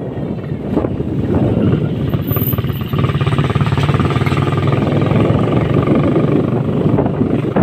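Motorcycle engine running at a steady pitch while riding, its note growing clearer about three seconds in, over a constant rush of wind on the microphone.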